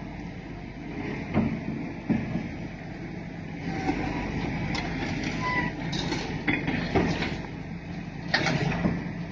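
A steady low mechanical hum, like heavy machinery running, broken by several sharp knocks and clanks, with a few brief high-pitched squeaks or tones in the middle.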